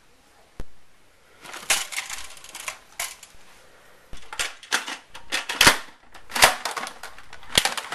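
Plastic Nerf toy blasters being picked up and handled, clattering and clicking in irregular bursts of rattles.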